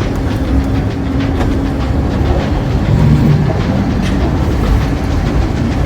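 Volk's Electric Railway car running along its narrow-gauge track, heard from on board: a steady rumble of wheels on rail with faint clicks.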